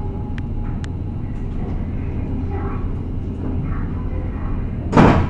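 Steady low rumble of a ferry's engines, with a couple of faint clicks about half a second in and a brief loud burst of noise near the end.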